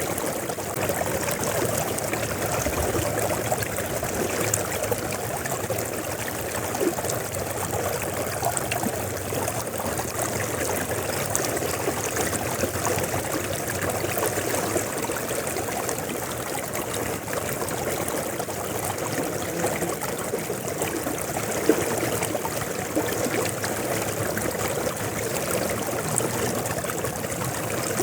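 River water flowing steadily, a continuous rushing with fine splashing and gurgling.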